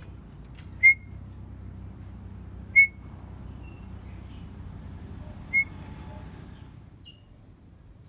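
Young oriental magpie-robin (murai kampung) giving three short, loud whistled chirps a couple of seconds apart, while it is hand-fed a grasshopper, over a low steady background rumble.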